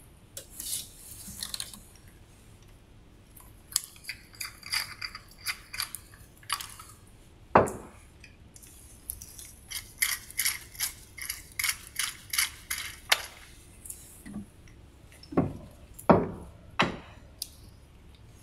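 Hands working a Retsch bead-beater mill after its run: the plastic lid is opened and the tube holder's clamp is unscrewed and removed. This gives a series of clicks and clinks, a run of evenly spaced clicks at about two or three a second near the middle, and several sharp knocks, the loudest near the end.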